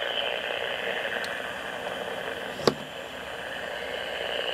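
Portable AM radio hissing with static as it picks up interference from a nearby homemade blocking oscillator circuit. A sharp click cuts through the hiss about two and a half seconds in.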